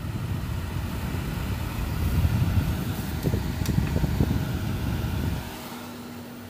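Midea dehumidifier running, its fan blowing air with a low rumble. About five and a half seconds in the rush drops away and a steady low hum is left.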